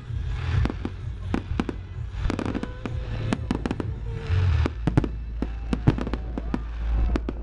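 Aerial fireworks display: a rapid, irregular run of pops and bangs from bursting shells and crackling stars over a low rumble, with sharper bangs about five and six seconds in.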